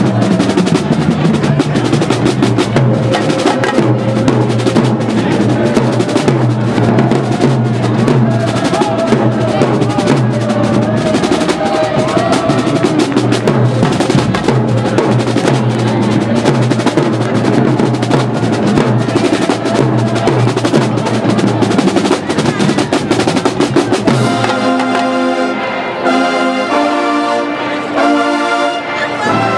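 Marching band playing in the stands: a drumline of snares, bass drums and cymbals drives a fast beat under trumpets, trombones and sousaphones. About five seconds before the end the drums stop and the brass holds a few loud chords.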